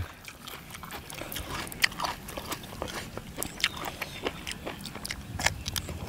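Close mouth sounds of people eating spicy glass-noodle seafood salad with raw vegetables: irregular crisp crunches and wet clicks of chewing.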